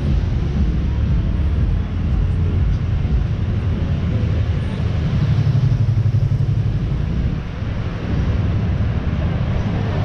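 Street traffic: cars driving past on a multi-lane city street, a steady low rumble of engines and tyres that grows a little louder about halfway through.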